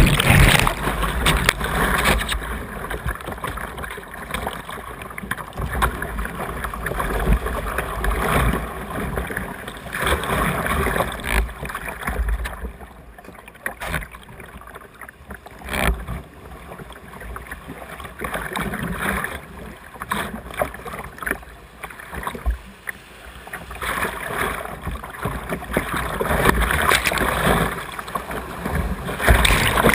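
Whitewater in an artificial whitewater channel rushing and splashing around a camera at the water's surface, with the camera under the water at the start. The water noise swells and fades as the camera rides the rapids, quieter about halfway through and louder again near the end.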